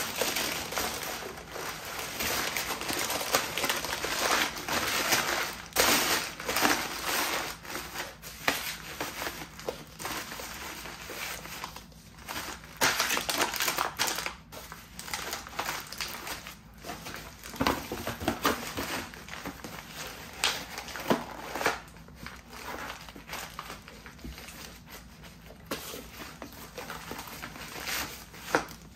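Paper, tissue paper and a thin cardboard box crumpled and pressed flat by hand: irregular crinkling and crackling in bursts, with short pauses between them.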